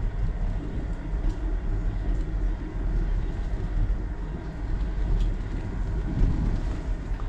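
Wind buffeting the microphone of a handlebar-mounted GoPro on a moving bicycle, a steady low rumble, mixed with the tyres rolling over a dirt path and a few faint ticks from the bike.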